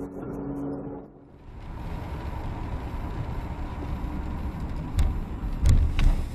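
Road noise of a car driving on a wet road, heard from the dashcam inside it. Near the end come several loud thumps and knocks as a car ahead collides with a turning tanker truck.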